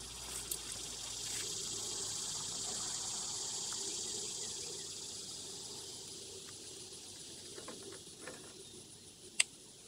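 Steady high chirring of an insect chorus, swelling over the first few seconds and slowly fading. Faint ticks come from handling an oil filter cartridge and its cap, with one sharp click near the end.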